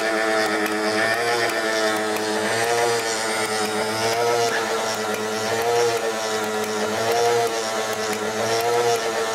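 Model Corliss twin tandem mill engine running on its 12-volt electric motor: a steady whine of several tones together that rise and fall slightly in pitch about every second and a half.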